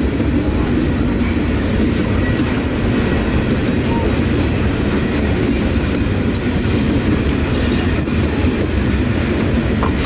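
Freight train of covered hoppers, tank cars and boxcars rolling past close by, its cars and wheels on the rails making a loud, steady low rumble.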